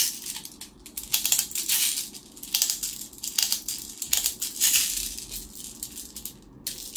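Plastic airsoft BBs rattling and clicking in short, repeated bursts as they are loaded into a Hi-Capa-type gas pistol magazine.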